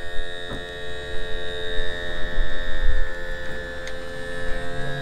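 A steady, loud electric hum with a high whine above it, holding one pitch. A lower tone joins near the end.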